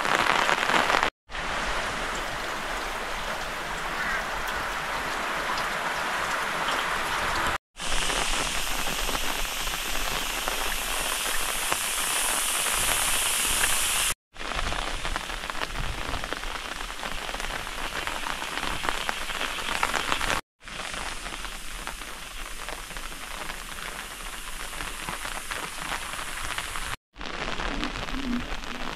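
Steady rain falling, an even hiss broken by short dead gaps about every six seconds.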